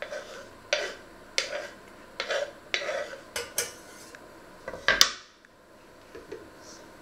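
A kitchen knife scraping diced onion off a small wooden board into a metal pot, in a run of quick scrapes and knocks. About five seconds in, the wooden board is set down with a louder knock.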